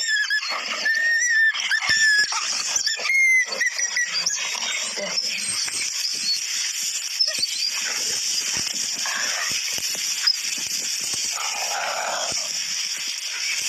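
Fight between a Tibetan mastiff and a wolf: high-pitched yelps and squeals, bending in pitch, during the first three seconds or so. After that comes a steady rushing noise with scuffling.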